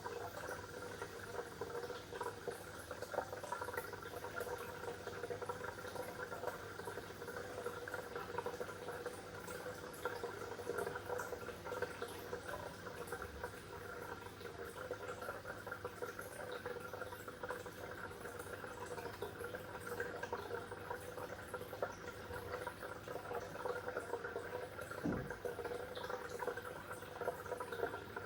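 Water bubbling and trickling steadily, a dense fizz of small pops and drips, with one soft low knock near the end.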